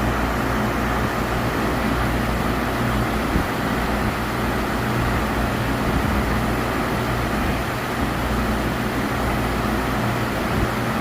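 CNC milling machine running steadily, a constant mechanical hum and whirr with no breaks.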